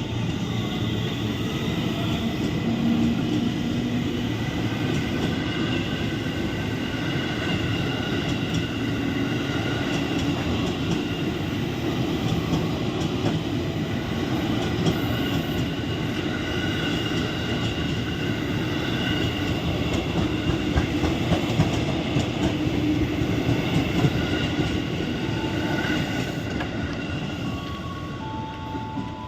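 KRL Commuter Line electric multiple-unit train running through the station: a steady rumble of wheels on rail with a faint electric whine over it. The sound fades over the last few seconds as the train pulls away.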